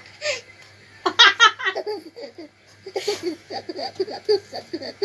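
A baby laughing: a loud run of quick laughs about a second in, then a string of short rhythmic giggles.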